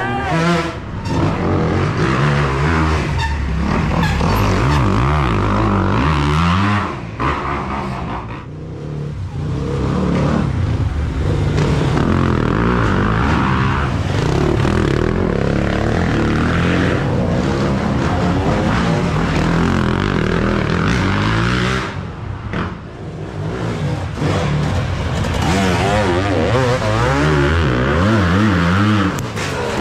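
Several dirt bike engines revving up and down as riders pass one after another through a tight corner, with the engines rising and falling in pitch. There are two short lulls between bikes, about eight seconds in and again about twenty-two seconds in.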